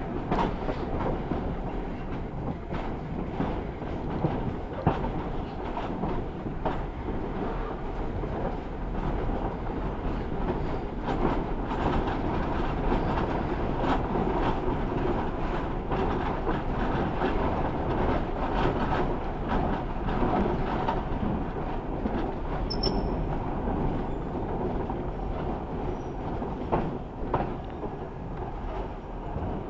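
Passenger carriages of a heritage train running over jointed track and points, a steady rumble broken by irregular wheel clicks and clatter, heard from an open carriage window.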